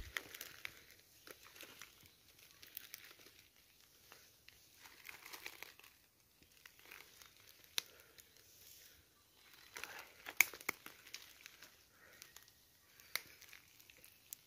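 Dry leaf litter and twigs crackling and rustling softly under slow, careful footsteps, with a few sharper clicks.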